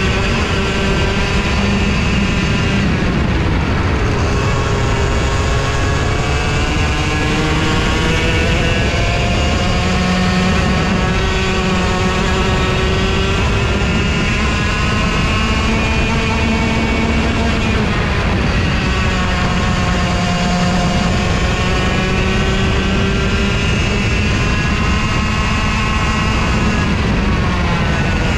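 Racing go-kart engine at full race pace, heard from on board, its revs rising and falling repeatedly as the kart accelerates and slows around the circuit.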